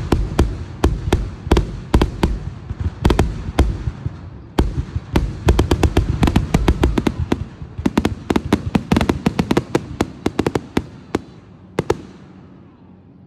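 Fireworks going off: a rapid run of sharp bangs and crackles over a low rumble, thickest in the middle and dying away near the end.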